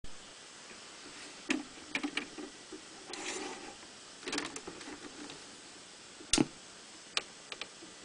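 Scattered clicks and knocks from hands handling a Bush TR82 transistor radio's case and top controls, with brief rustling; the loudest is a single sharp knock a little after six seconds in.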